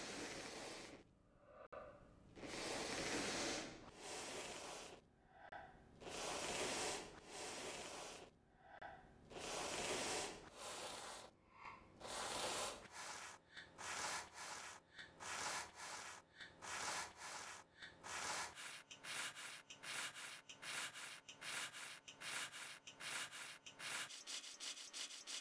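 Faint heavy breathing: a short breathy clip repeated over and over, the repeats growing shorter and quicker from about halfway through.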